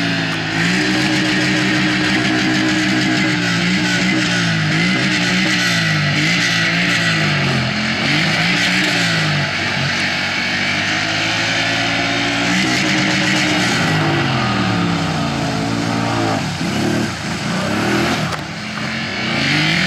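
Quad bike (ATV) engine revving up and down repeatedly as it drives through a muddy water hole, the pitch rising and falling several times with each throttle blip.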